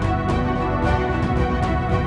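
Instrumental background music with sustained tones and a regular beat.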